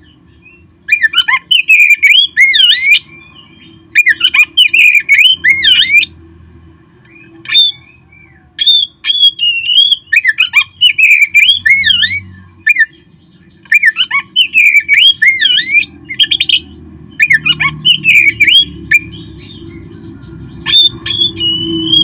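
Oriental magpie-robin (kacer) singing loud, fast phrases of sweeping, looping whistled notes, each phrase about one to two seconds long with short pauses between, over a steady low hum.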